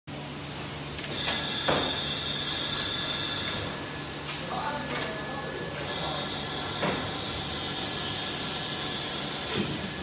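Vacuum forming machine running, with a loud steady hiss of air. A high whistle sounds over it twice, for a few seconds each, and there are a few light knocks.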